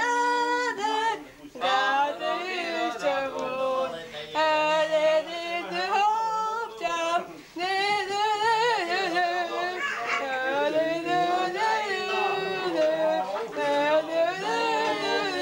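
One voice singing without accompaniment, holding long notes with a wavering pitch, in phrases broken by short pauses.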